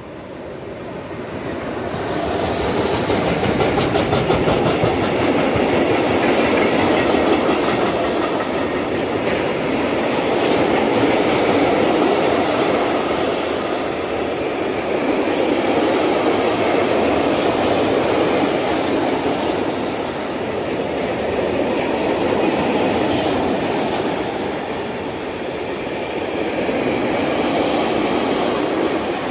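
Freight train of tank wagons, hauled by electric locomotive 181 077, rolling past with a steady rumble of wheels on rails. The sound swells over the first two seconds, then holds with slow rises and falls as the wagons go by.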